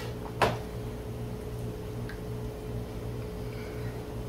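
A metal ladle clinks once against a stainless cooking pot about half a second in while enchilada sauce is ladled, with a much fainter tick about two seconds in, over a steady low hum.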